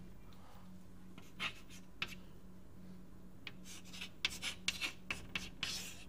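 Writing strokes, short and scratchy: a couple in the first half, then a quick run of them in the last two seconds, over a faint steady hum.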